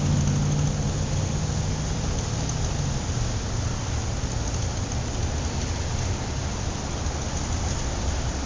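A motor vehicle running steadily under a constant rushing noise. The low engine hum drops slightly in pitch about three seconds in.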